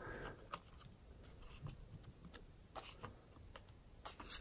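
Faint light taps and soft rustles of trading cards being lifted off small display easels and gathered into a stack in the hand.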